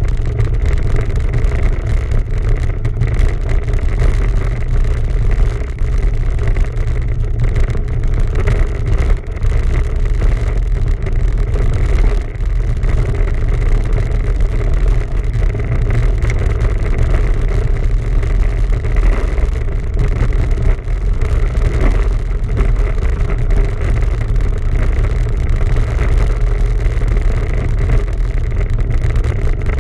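Steady wind rumble buffeting the microphone of a camera carried along on a moving bicycle.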